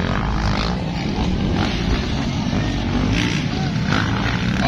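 Motocross dirt bike engines running on the track, a steady loud mechanical noise, with spectators' chatter mixed in.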